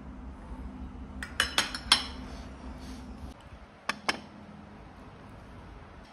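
Metal spoon and fork clinking against a ceramic bowl: four sharp clinks in quick succession, then two more about two seconds later. A low steady hum underneath stops about halfway through.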